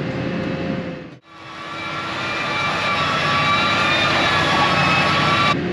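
New Holland T6.180 Methane Power tractor's 6.7-litre spark-ignition gas engine running hard under load, pulling a cultivator, with a steady high whine over the engine note. The sound drops out briefly about a second in and then fades back up.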